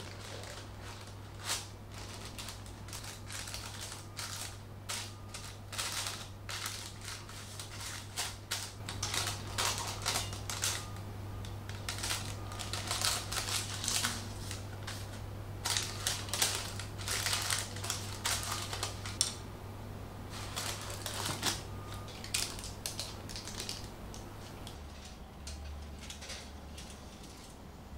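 Baking parchment paper crinkling and rustling in irregular runs of crackles as it is handled and folded around a pot, over a low steady hum.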